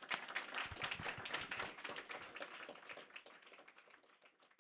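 Audience applauding with many irregular hand claps, dying away over the last second or so.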